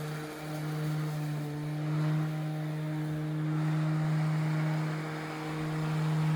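Ryobi ONE+ 13-inch cordless battery lawn mower running: a steady electric motor and blade hum with a strong, even tone, its loudness rising and falling slightly.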